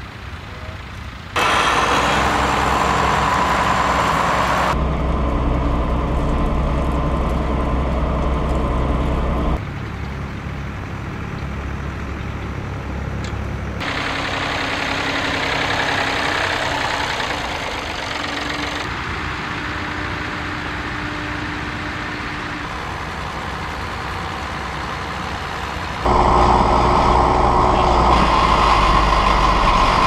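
Tractor engines running steadily while pulling ploughs, heard as a run of separate takes, each with its own steady engine note. The loudest stretch comes near the end.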